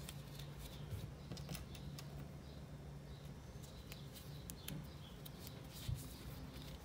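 Faint small clicks and rustles of a crochet hook working through cotton yarn and a plastic stitch marker being moved, over a low steady hum.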